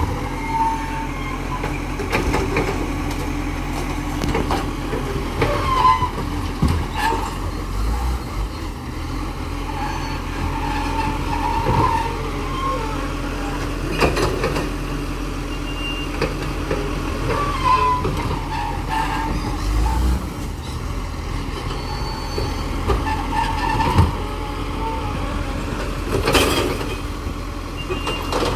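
Side-loader rubbish truck's diesel engine running steadily while its hydraulic arm grabs, lifts and tips a wheelie bin, with repeated squeaks and several sharp clunks. A louder rush of noise comes near the end.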